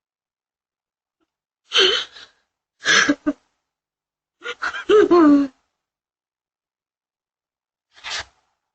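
A person's voice in four short, breathy outbursts, gasps and cries. The third, about five seconds in, is the longest and falls in pitch.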